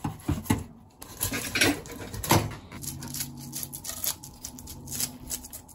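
Kitchen scissors snipping through a lake whitefish's fins, a few sharp snips, then a knife scraping the scales off the fish in quick repeated strokes from about two and a half seconds in.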